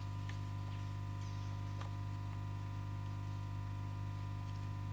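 Steady electrical mains hum, a low buzz with a stack of even overtones, with a couple of faint small clicks as the chainsaw's plastic carburettor and choke parts are handled.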